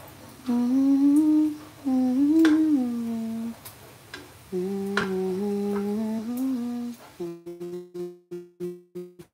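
A person humming a slow tune in held notes, with a couple of sharp taps about two and a half and five seconds in. Near the end the humming breaks into short choppy fragments and then cuts out, as if the audio is dropping out.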